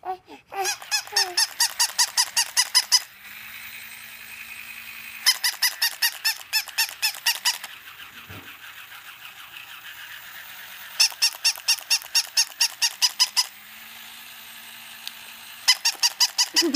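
Battery-operated plush toy puppy giving rapid, high-pitched electronic yaps, about five a second, in four runs of about two seconds each, with a steady whirring hum between the runs.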